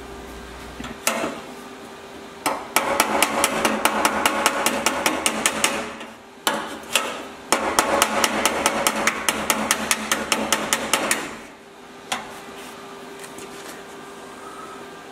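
Hammer and dolly tapping the sheet-steel door frame of an Alfa Romeo Giulia 105, aligning a tack-welded repair panel flush with the frame. The taps come in two quick runs of several a second, each lasting about three to four seconds, with a short pause between. The tapping stops about eleven seconds in, leaving a faint steady hum.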